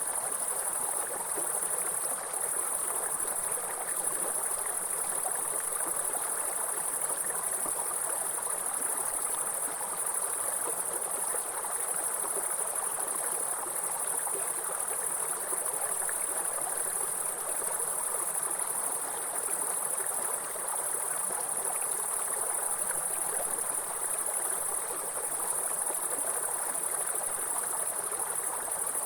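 Mountain stream running steadily, with a constant high-pitched insect chorus, crickets by the sound of it, sitting above the water's rush and louder than it.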